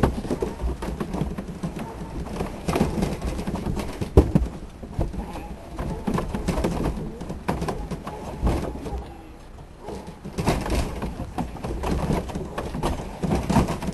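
Sheep moving through a metal handling race, with irregular knocks and clatter over a low steady hum.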